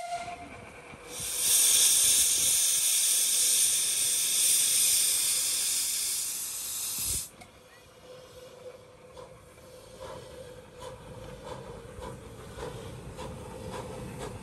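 Miniature steam locomotive letting off steam: a loud hiss starts about a second in and cuts off sharply some six seconds later. Faint clicking follows.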